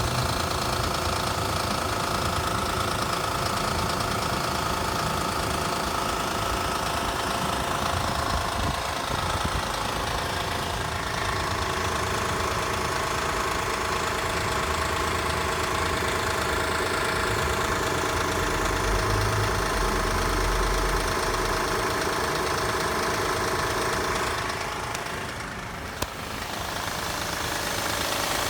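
Car engine idling after being parked overnight in the cold, making an abnormal noise that goes away once the engine has warmed up. It dips briefly about 25 seconds in, with a single sharp click.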